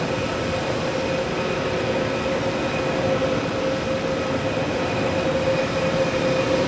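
Airbus A320neo's Pratt & Whitney geared turbofan engines running steadily: an even rushing noise with a constant whine held on several steady pitches.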